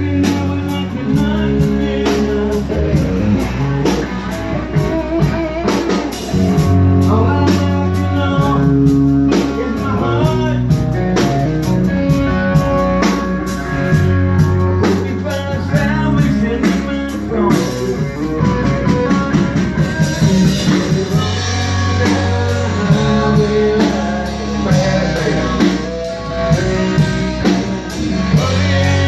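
Rock band music: guitar over a repeating bass line and a drum kit beat.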